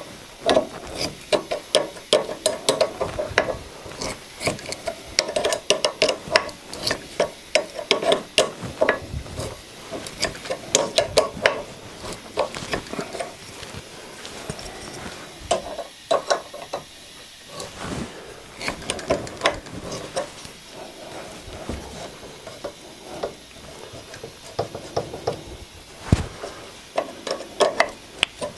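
Steel adjustable spanner clicking and clinking on the square of a hand tap as it is turned in short strokes and refitted, with scraping rubs as the tap cuts a 7/16 BSF thread in a casting.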